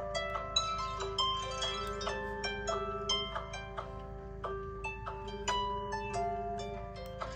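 Phone ringtone playing a melody of short, harp-like notes, several a second, over a steady lower held note.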